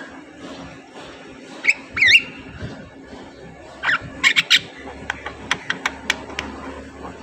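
Javan myna calling: a couple of gliding whistled calls about two seconds in, a quick cluster of sharp harsh notes around four seconds, then a run of short clicking notes.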